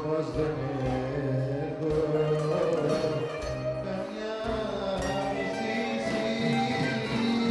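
Live Greek song: a man sings into a microphone, accompanied by a band with a bouzouki and drums.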